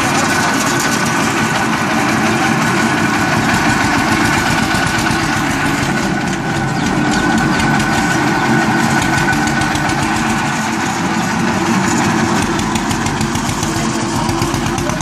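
Single-cylinder diesel engine of a Thai farm truck running at idle with a steady, rapid knocking clatter.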